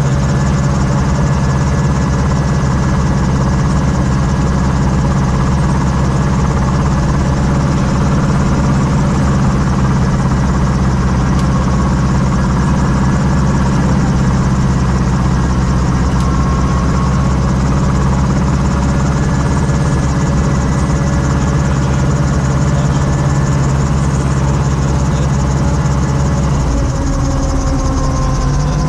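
Schweizer 269C-1 helicopter's four-cylinder Lycoming piston engine and rotor system running steadily. About 27 seconds in, the engine note shifts slightly in pitch.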